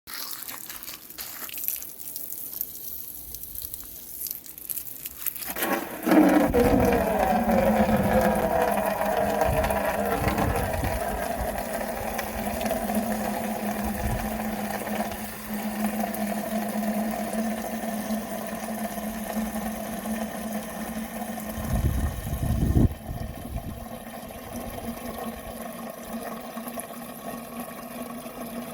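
Water running steadily with a low hum under it, starting about five seconds in after a few seconds of quieter handling noise.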